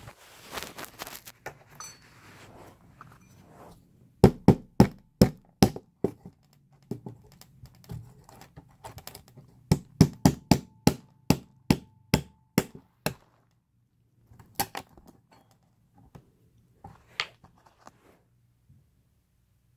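Hammer tapping a thin steel paint scraper wedged under a BGA chip on a computer motherboard, prying the chip off. Sharp taps at about three a second: a short run about four seconds in, a longer run of about a dozen from about ten seconds in, then a few single taps.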